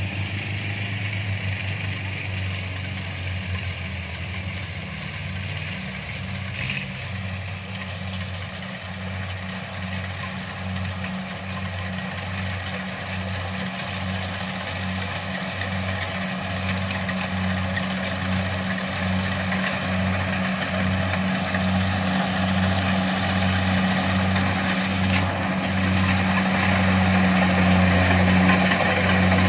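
Kubota DC-70 combine harvester running steadily, a low even pulsing engine hum that grows louder toward the end.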